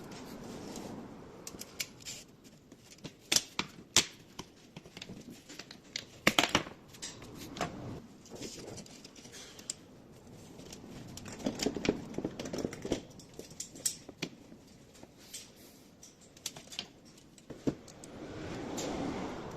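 Irregular sharp clicks and taps of hard parts and hand tools being worked, with spells of duller rustling and scraping between them: hands-on work on a car's window regulator.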